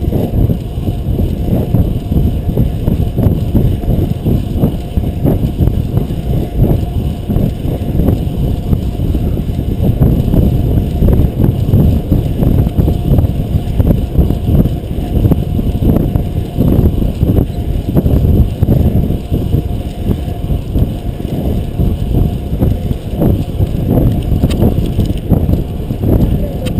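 Wind buffeting a GoPro's microphone on a fixed-gear bicycle at race speed: a loud, irregular low rumble.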